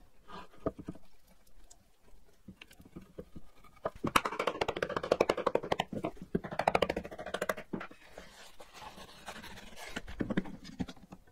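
Bench-work sounds of gluing up an oak dovetail joint: a glue brush scrubbing in the sockets and the joint being knocked together with a mallet. A dense spell of quick rubbing and knocking comes from about four to eight seconds in.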